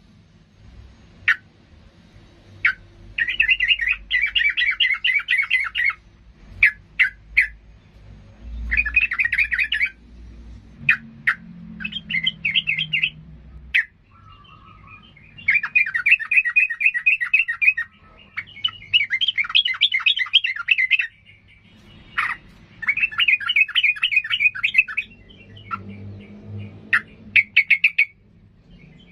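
Caged yellow-vented bulbul (trucukan) singing loudly and vigorously: repeated bursts of rapid chattering notes, each a second or two long, with single sharp chips between them.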